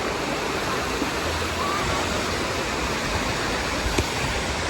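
Steady rush of falling and splashing water at a water park, with faint distant voices over it and a single brief click about four seconds in.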